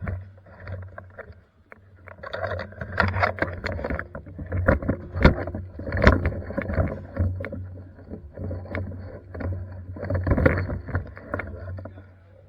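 Irregular clicks, knocks and rustling over a steady low hum, coming in louder clusters a couple of seconds in and again around ten seconds in.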